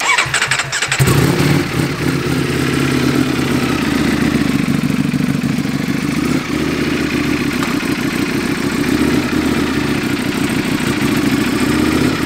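Ducati Panigale V4 engine started through a full titanium Akrapovic exhaust with the baffles removed: the starter cranks for about a second, the engine catches with a brief rise in revs, then settles into a loud, steady idle.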